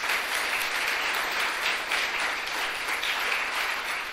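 Audience applauding steadily, a dense, even clapping from many hands.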